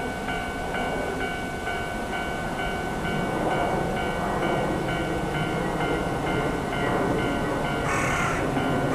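Japanese railway level-crossing warning bell ringing in a steady, regular beat, over the rumble of an approaching train that grows slightly louder. A hiss joins near the end.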